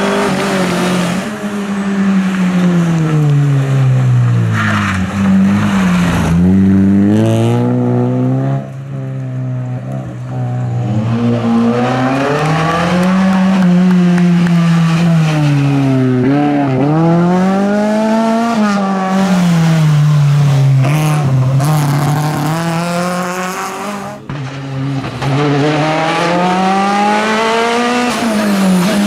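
Rally car engine revving hard and working through the gears, its pitch climbing, then falling again and again as it accelerates, shifts and brakes.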